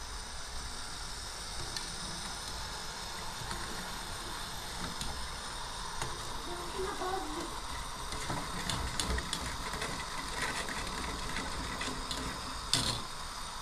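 A metal spoon stirring in a steel bowl set over a kettle, with small scrapes and clinks against the metal and one sharper knock near the end, over a steady hiss.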